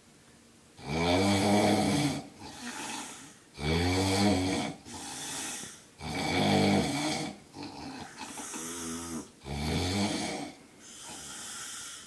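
A man snoring very loudly in deep sleep: four loud snores about two and a half seconds apart, each followed by a quieter breath.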